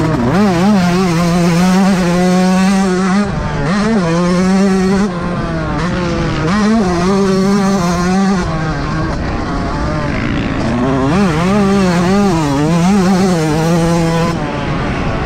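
Yamaha YZ125 two-stroke motocross engine revving hard, its pitch repeatedly climbing and dropping as the throttle is worked through the gears and corners, heard up close from on the bike.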